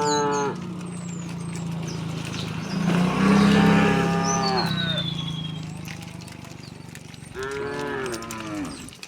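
Cattle mooing: three moos, the last of an earlier call fading just after the start, a long loud moo a few seconds in, and a shorter one near the end, over a low steady lowing drone.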